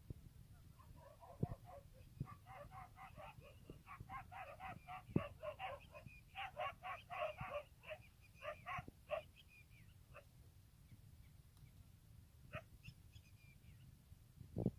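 A dog barking in a fast run of short yaps for several seconds, then stopping, with a few sharp knocks among the barks.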